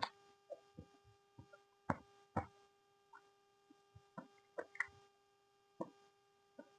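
Close mouth sounds of someone eating chocolate cake: irregular wet smacks and clicks of chewing, over a steady faint electrical hum.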